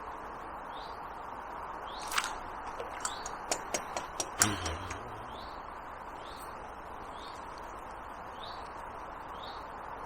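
A bird repeats a short, high, rising chirp about once a second over a steady hiss of outdoor background noise. About two to five seconds in comes a run of sharp clicks ending in a louder knock.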